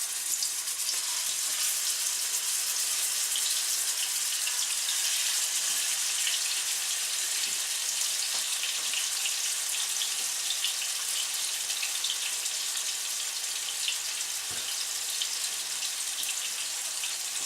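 Minced-beef steaks frying in hot oil in a pan: a steady sizzle with fine crackling spatter.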